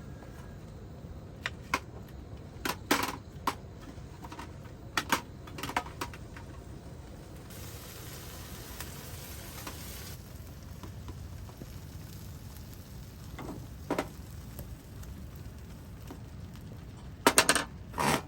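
Meat sizzling on a cast-iron griddle plate, with several sharp clicks and knocks of a utensil against the plate, the loudest a quick cluster near the end.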